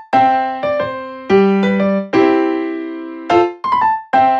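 Background music: a keyboard tune of short struck notes and chords, each fading after it is played.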